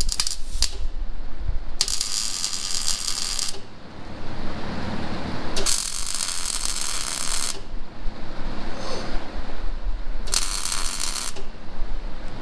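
Welding arc crackling in three short bursts, each one to two seconds long, with a few sharp metallic clicks at the start and a low steady hum between the bursts.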